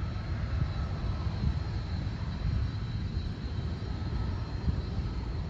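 Turbofan engines of a United Express Embraer regional jet running at taxi power: a steady low rumble with a thin, high, steady whine over it.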